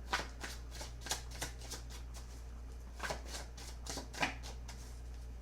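A deck of tarot cards shuffled by hand: soft flicking clicks of cards against each other, in a quick run through the first second and a half and again from about three seconds in.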